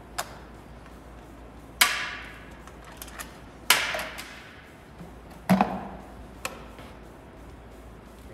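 Metal hand tools and engine parts clinking during scooter engine disassembly: about six sharp clinks, the three loudest ringing out briefly.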